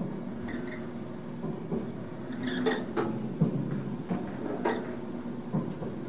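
Oil derrick machinery working in a slow, repeating cycle: short squeaks and knocks come round about every four seconds over a steady low hum.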